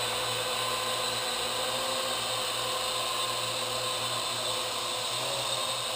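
Parrot AR.Drone 2.0 quadcopter in flight, its four electric motors and propellers giving a steady whirring whine. The pitch shifts slightly about five seconds in.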